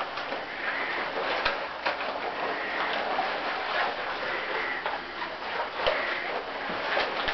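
Latex rubber suits rubbing and squeaking against themselves and each other as the wearers move, with short squeaks and small clicks over a continuous rustle.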